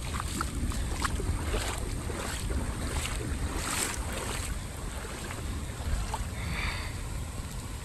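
Heavy rain falling steadily on floodwater, with wind rumbling on the microphone.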